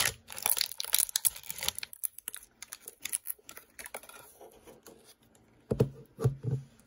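Crinkly plastic wrapper tearing and crackling as it is pulled off an L.O.L. Surprise! toy ball, thinning out after about two seconds, then two dull thumps near the end.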